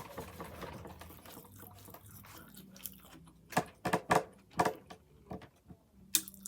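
Biting into and chewing a crispy chicken sandwich: several short, sharp crunches with quiet gaps between them in the second half.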